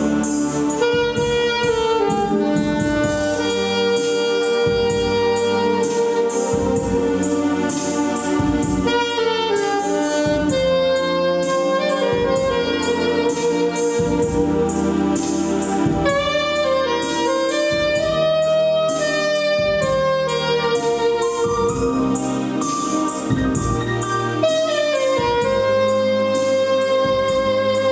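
Jazz saxophone playing a melody of held and sliding notes over accompaniment with a steady beat.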